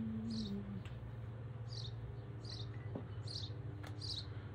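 Five short high chirps repeating roughly once a second, each sliding down in pitch, over a steady low hum.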